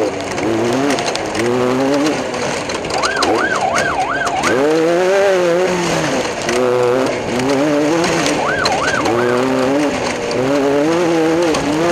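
A siren wails in two short bursts of quick up-and-down pitch sweeps, one about three seconds in and one near nine seconds, over off-road race-car engines revving up and down.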